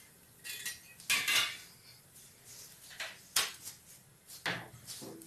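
Kitchen utensils and a plate clinking and scraping in about half a dozen irregular short knocks, the loudest about a second in.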